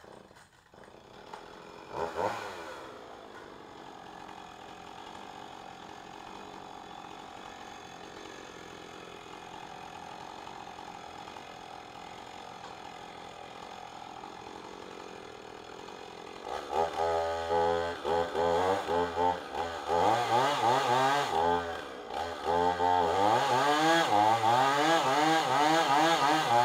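A small gas chainsaw fires up about two seconds in and settles to a steady idle. From about two-thirds of the way through it is revved in repeated surges, then held at high revs near the end as it cuts into a heavy hardwood tree limb.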